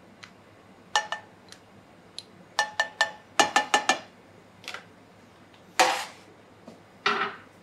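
Butter melting in a hot frying pan over high heat, with a few short sputtering hisses. Around them comes a string of sharp ringing clinks of metal or crockery: one, then a quick run of seven.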